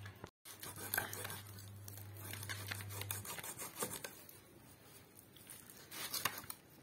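Faint scraping and small clicks of a fish being scraped against an aruvamanai's fixed upright blade, its scales coming off. A low steady hum underneath stops about three seconds in.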